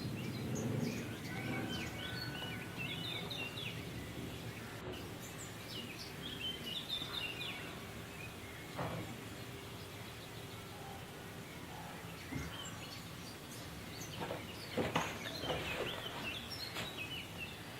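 Birds chirping faintly in the background in scattered clusters of short calls, over a low steady hum, with a few soft knocks.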